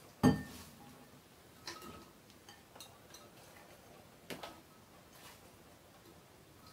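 Spoon clinking against a ceramic bowl and a glass jar while chopped onion is scooped into the jar: one sharp knock just after the start, then a few light taps.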